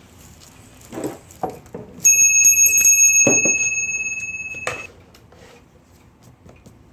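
Smith Corona typewriter's small bell struck once, ringing out and fading for about two and a half seconds before a click cuts it short. A few mechanical clicks and knocks come before it.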